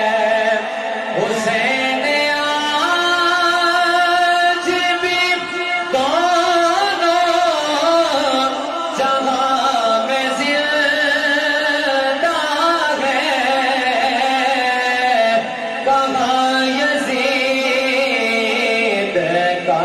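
Background music: a voice singing a slow, drawn-out chant-like melody with wavering, gliding notes.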